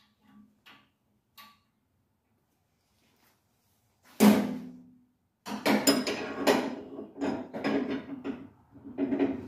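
Hands-on work at an Allis-Chalmers B tractor: a few light clicks, then a loud clank with a short ring about four seconds in, followed by a run of uneven knocks and rattles.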